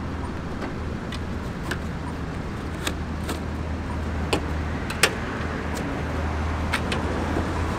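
A few sharp clicks and taps of bike-rack strap hooks and buckles against a car's tailgate as the straps are clipped on and snugged, over a steady low rumble of vehicle traffic.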